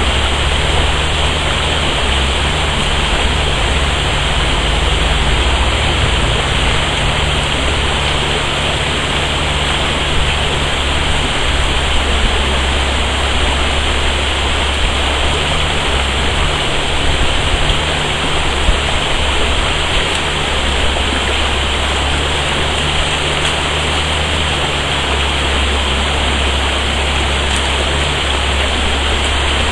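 Small rocky stream rushing over stones and shallow riffles close by, a steady, loud rush of water that does not change.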